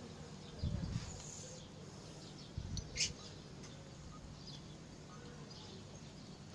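Birds chirping in short scattered calls, with two low thumps, one just under a second in and one around three seconds, the second ending in a sharp click.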